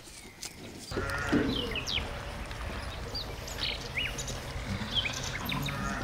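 A farm animal bleats about a second in and again near the end, over the repeated chirping of small birds.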